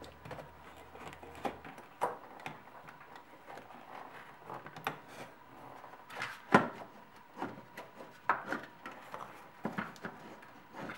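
Plastic intake parts being handled on a BMW E46 engine: scattered clicks, knocks and rubbing as the DISA valve is worked out of the intake manifold, with a sharper knock about six and a half seconds in.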